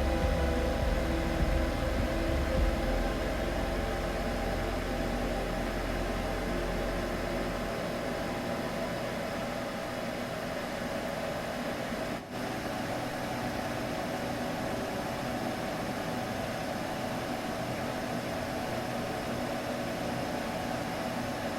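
Steady machine-like whirring noise with a constant hum, used as a baby sleep aid. A deep rumble under it fades out about eight seconds in, and the sound drops out for a split second about twelve seconds in.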